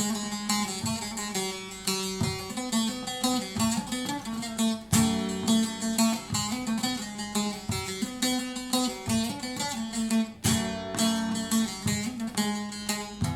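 Instrumental break in a Kurdish song: a quick plucked-string melody over a steady drum beat, with no singing.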